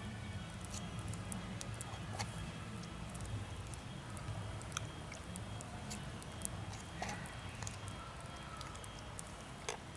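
A person chewing a bite of grilled steak, with scattered sharp crackles from a wood campfire over a low steady rumble.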